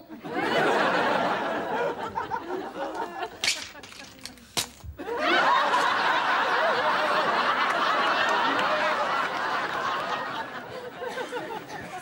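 Studio audience laughing in two waves: a short one at the start and a longer one from about five seconds in that fades near the end. A couple of sharp knocks fall in the lull between them.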